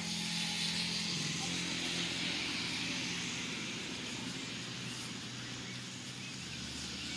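A motorcycle engine running steadily, its pitch dropping a step about a second in, over a steady high hiss.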